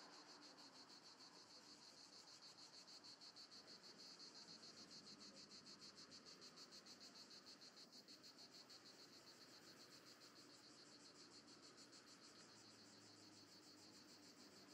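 Cicadas singing: a faint, high, fast and even pulsing buzz.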